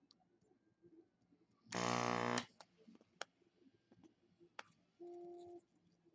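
A MEDO VP0625 vacuum pump buzzes loudly for under a second as it is switched on to suck molten solder through a desoldering iron. A few sharp clicks come around it, and a shorter, quieter steady tone follows a few seconds later.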